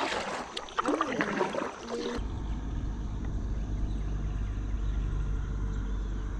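Kayak paddle strokes dipping and splashing in the water, with small knocks. From about two seconds in, a steady low rumble.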